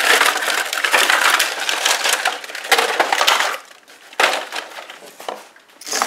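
Clear plastic packaging crinkling and crackling as it is handled, dense for about three and a half seconds, then fainter with a brief rustle about four seconds in and another near the end.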